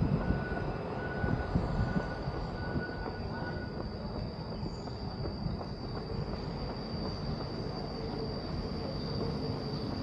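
Steady rumble and hiss of city ambience, louder for the first two seconds, with a thin steady high whine throughout and a fainter steady tone that stops a little under four seconds in.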